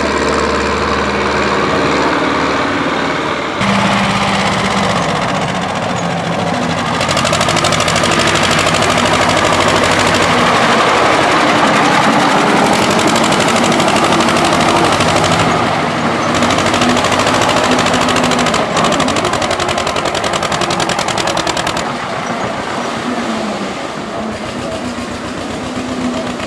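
Tractor engines running at shifting speeds, loud throughout, with a rapid rattling firing beat. The sound changes abruptly several times.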